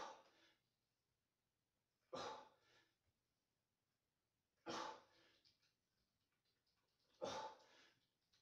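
A man's forceful breaths, sharp exhalations that come four times about two and a half seconds apart, one per deadlift repetition.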